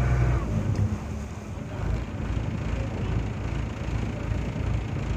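Tourist motorboat underway on open water: an uneven low rumble with wind buffeting the microphone and a hiss of water. A steady low engine hum cuts out about half a second in.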